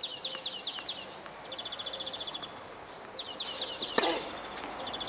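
Small birds singing rapid trills of repeated chirps. About four seconds in comes a single sharp pop of a tennis racket striking the ball on a serve.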